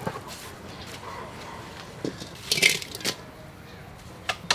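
Metal clinks and a short clatter as raw shrimp are tipped from a stainless steel bowl into a metal cooking pot, with a few sharp knocks of bowl against pot; the loudest clatter comes a little past the middle.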